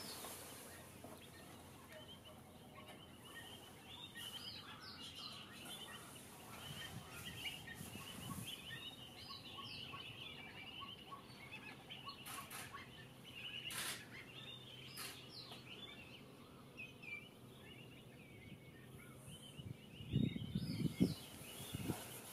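A large flock of pied avocets calling: a constant chatter of many short, overlapping high calls. A few low thumps come near the end.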